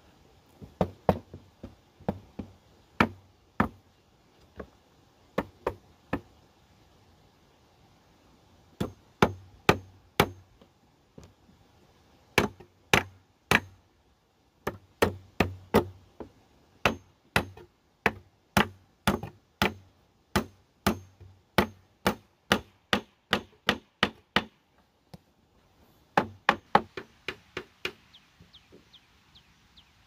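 Hammer driving nails into a wooden chair frame: sharp strikes in runs of several blows with short pauses between, and lighter taps near the end.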